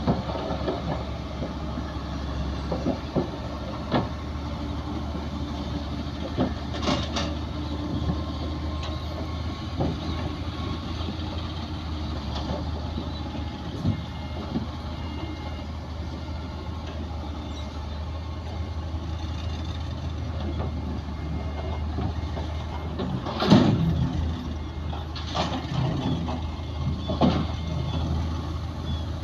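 Heavy diesel earthmoving machinery running steadily, with scattered metallic clanks and knocks, the loudest about 23 seconds in.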